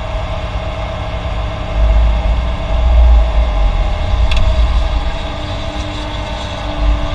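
Heavy diesel construction machinery running, its low rumble swelling for a couple of seconds about two seconds in, with one sharp click about four seconds in.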